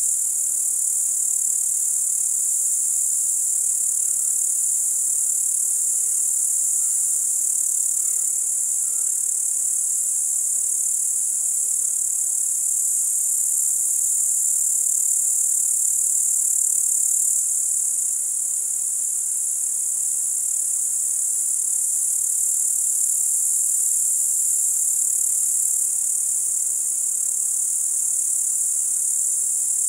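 Field crickets stridulating: a steady high-pitched insect song that runs on without a break.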